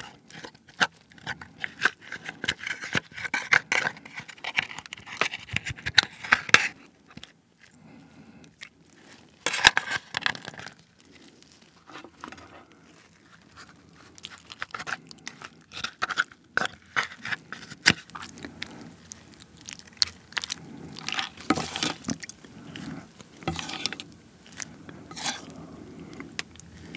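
Chopsticks scraping the roe and innards out of a soy-marinated raw crab's top shell onto rice: a run of wet squishing and sharp clicks of chopsticks against the shell, close to the microphone.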